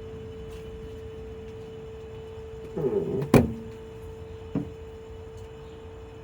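A steady hum runs throughout. About halfway through comes a short downward-sliding groan and a sharp click, then a lighter click about a second later, as the vintage Kenmore mini fridge's compressor is switched on and starts.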